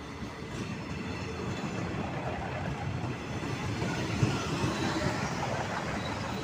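State Railway of Thailand diesel railcar train running past close along the platform, its engine and wheels getting louder as the cars go by. A sharp clank about four seconds in.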